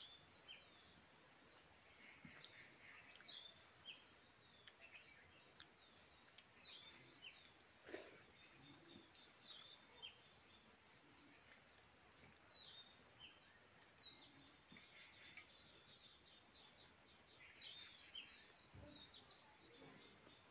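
Faint, quick high-pitched bird chirps, coming in clusters throughout, over a quiet background hiss, with a single sharp click about eight seconds in.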